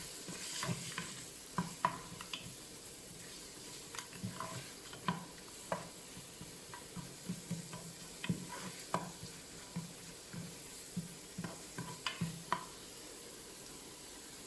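Spoon stirring and scraping onions with ginger-garlic paste frying in oil in the pot of a Noxxa multi-cooker on its stir-fry setting: irregular clicks and scrapes over a faint steady sizzle. The stirring stops near the end, leaving only the sizzle.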